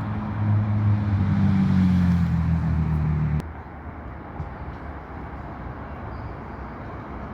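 A vehicle engine running with a low hum that sinks slightly in pitch, cut off abruptly about three and a half seconds in, followed by steady outdoor background noise.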